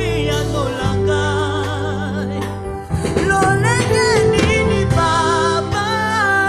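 Live Congolese gospel worship song: several voices singing with vibrato over sustained keyboard and bass guitar notes, with a brief flurry of drum strokes about halfway through.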